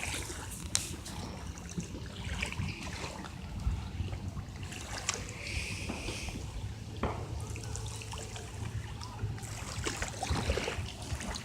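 Small waves lapping and trickling at the river's edge, stirred up by passing boats, over a low steady hum of distant boat engines. A few faint sharp clicks are heard now and then.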